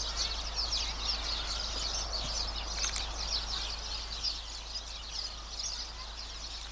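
A chorus of small birds chirping and twittering continuously, many short calls overlapping, with a brief click about three seconds in.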